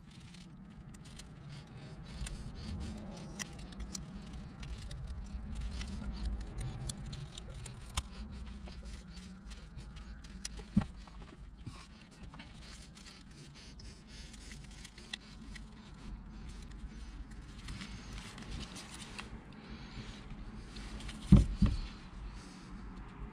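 Small clicks and light scraping of hand tools working on the parts of a hydraulic cylinder being taken apart, with one louder knock near the end.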